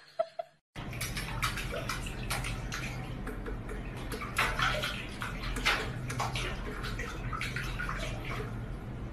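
Water running and splashing in a stainless-steel kitchen sink where a cat is standing, with irregular splashes over a steady flow and a low steady hum underneath; it starts suddenly just under a second in.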